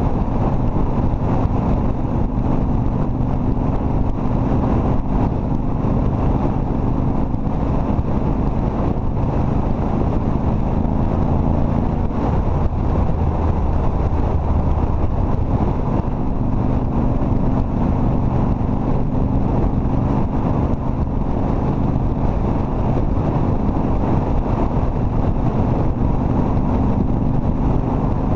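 Cruiser motorcycle's engine running steadily at road speed, heard from the rider's seat with wind buffeting the microphone. The engine note changes for a few seconds about halfway through, then settles again.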